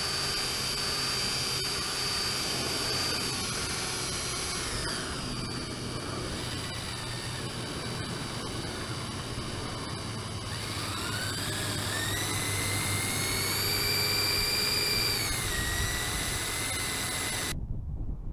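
Whine of the LEGO Technic amphibious vehicle's electric RC buggy motors driving it through the water, with a steady wash of noise beneath. The pitch drops about four seconds in, climbs again from about ten seconds, dips near fifteen seconds, then the sound cuts off suddenly near the end.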